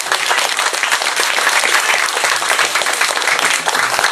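Audience applauding loudly and steadily, many hands clapping at once, at the close of a speech.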